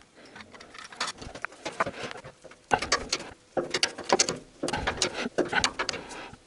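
Irregular metallic clicks and clinks of a socket and a long breaker bar being handled and fitted onto a sump-guard nut.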